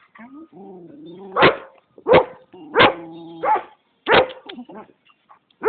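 Dog barking: four sharp barks roughly a second apart, with longer wavering whining calls between them.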